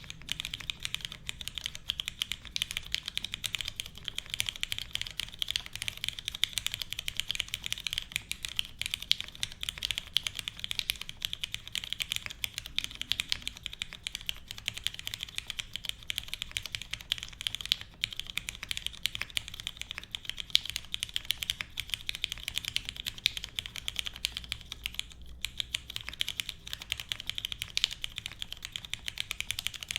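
Fast, continuous typing on a Singa Kohaku custom mechanical keyboard. The board has lubed and filmed Cherry MX Black linear switches in a full aluminium plate and is fitted with XMI keycaps. The keystrokes come in a steady, unbroken stream.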